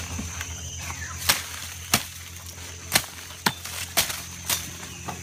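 A hand tool chopping into the ground in a series of sharp strikes, about six, spaced half a second to a second apart, as taro corms are dug out and cut free.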